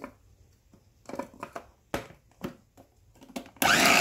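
Hard plastic clicks and knocks as the lid and motor head of a Mitochiba electric mini chopper are fitted onto its bowl, then near the end the chopper's motor starts suddenly with a loud steady whir, blending tomatoes.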